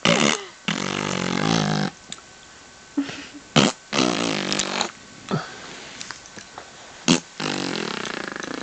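A person making imitation fart noises: three long buzzing notes of about a second each, the first near the start, one about four seconds in and one near the end, with short sharp blasts between them.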